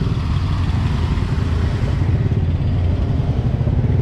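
Busy street traffic, mostly motorbikes, running steadily as a loud low rumble.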